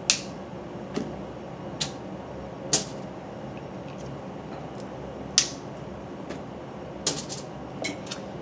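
Fresh asparagus spears snapped by hand at their woody bases and set down on a foil-lined sheet pan: about eight sharp, irregularly spaced snaps and clicks.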